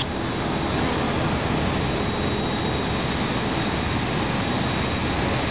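Boeing 787 Dreamliner jet rolling out on the runway just after touchdown, making a steady, even noise that does not change.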